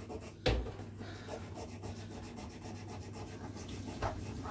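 Cloth rubbing and wiping inside a small part from a Linkert M74B carburettor as it is cleaned, with one sharp click about half a second in.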